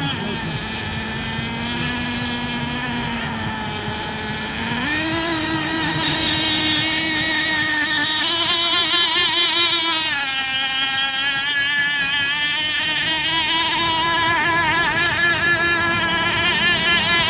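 Small engine of a radio-controlled SuperVee 27-inch racing boat running fast across the water on a propeller test run: a steady whine that steps up in pitch and gets louder about five seconds in, then wavers up and down as the boat turns.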